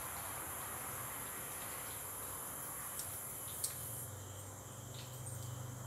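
Steady high-pitched trill of crickets, fading away a little past halfway, with a few light clicks of metal tongs against a plate.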